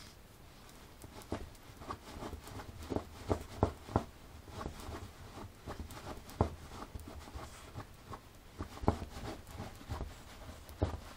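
Small dog wriggling and rolling on its back, its body and legs rubbing and bumping against the surface it lies on: irregular soft knocks and rustling, busiest in the first half.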